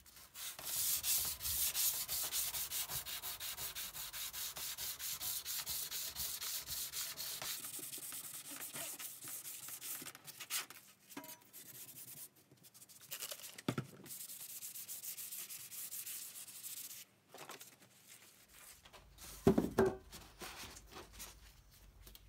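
Rapid back-and-forth hand sanding of a handsaw's steel plate with sandpaper, taking off rust. The sanding stops about three-quarters of the way through, followed by a few knocks, the loudest with a short ring.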